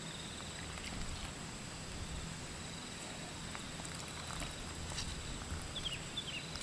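Insects shrilling steadily in two even high tones, with faint ticks and patters as lemon juice is squeezed by hand and drips into a stone mortar. A few short falling chirps come near the end.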